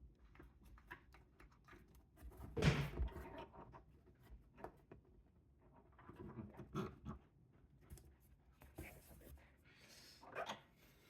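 Light hand-handling noises as small 3D-printed plastic parts are fitted onto a cabinet door: scattered rubs, scrapes and small knocks, the loudest a short scuffle about two and a half seconds in, with more around six to seven seconds and again near the end.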